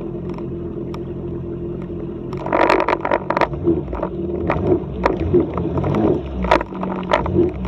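Yamaha WaveRunner personal watercraft engine running at low speed with a steady hum. About two and a half seconds in, a louder rushing noise with sharp crackles and clicks joins it.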